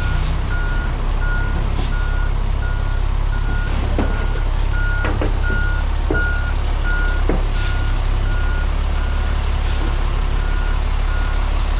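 Backup alarm of a reversing Pierce fire truck beeping at about two beeps a second over the steady low rumble of its diesel engine as it creeps back onto the trailer deck. A few sharp clicks come in along the way.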